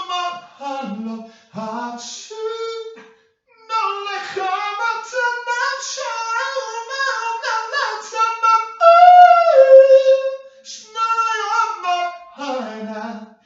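A single high-pitched voice singing without accompaniment, moving through long held notes, with its loudest, longest note about nine seconds in.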